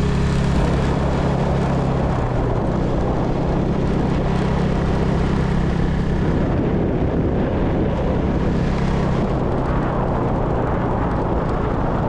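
Small rented motorbike's engine running steadily at cruising speed, with wind and road noise rushing over the microphone.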